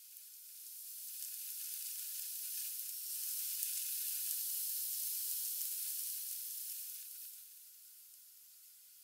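Rain shower, sped up tenfold, heard as an even high hiss that swells over the first few seconds and fades away after about seven seconds.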